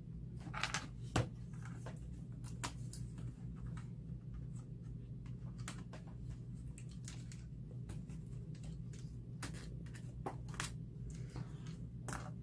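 Scattered light clicks and rustles of hands handling a laptop's motherboard and plastic bottom case during disassembly, with one sharper click about a second in, over a steady low hum.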